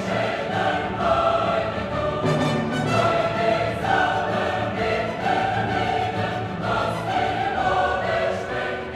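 Background music: a choir singing sustained notes with orchestral accompaniment.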